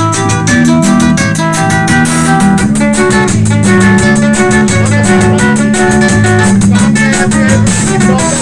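Band music led by plucked guitars, with several notes sounding together over a steady, even beat.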